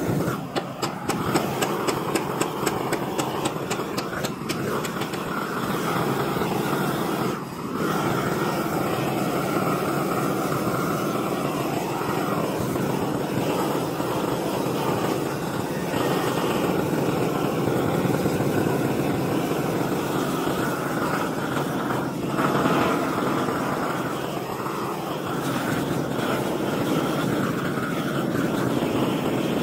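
Propane torch burner running with a steady rushing flame noise while it heats a steel weld seam, with a fast run of crackling ticks in the first few seconds.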